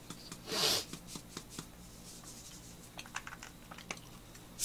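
Plastic ketchup squeeze bottle handled close to the microphone: a short rustling hiss under a second in, then light clicks and taps.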